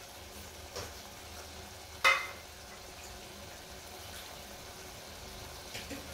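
Mutton and masala sizzling steadily as they fry in a pressure cooker, with a sharp knock about two seconds in and a lighter one just before it.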